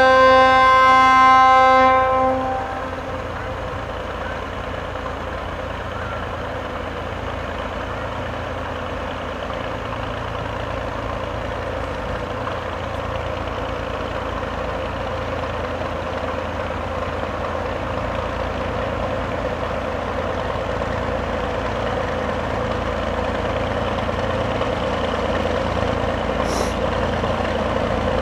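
1941 ex-Navy 45-ton diesel locomotive: its horn blows a single steady note that cuts off about two seconds in, then its engine runs steadily, slowly growing louder as the locomotive approaches.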